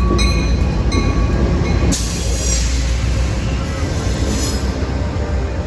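Amtrak California Zephyr passenger train arriving at the platform: a heavy low rumble of the train rolling in, with high wheel squeals in the first second and a burst of hissing about two seconds in.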